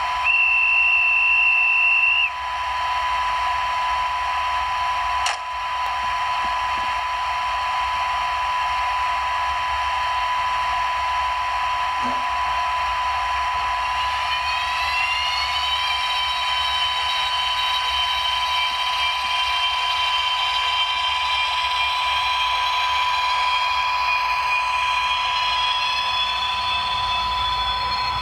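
Sound decoder of an H0 model electric locomotive playing through its small speaker: a steady electric hum, with a high steady tone for about two seconds at the start and a click about five seconds in. From about 14 s a whine rises in pitch for two seconds and then holds, as the locomotive starts to move off.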